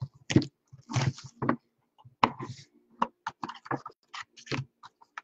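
Trading card box and its packaging being handled and opened: an irregular run of short clicks, taps and crinkles.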